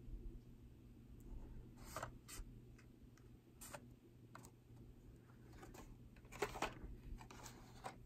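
Faint, scattered crackles and rustles of a carded die-cast toy car's plastic blister pack and card being handled, with a steady low hum underneath.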